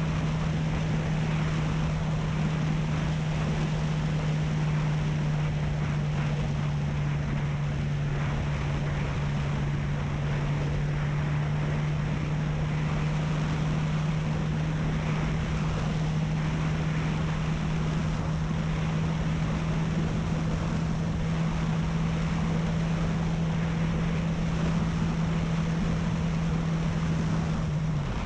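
Honda CB300F's single-cylinder engine at a steady highway cruise, its note held at one pitch, under heavy wind rush and road noise. At the very end the engine note drops as the throttle is rolled off.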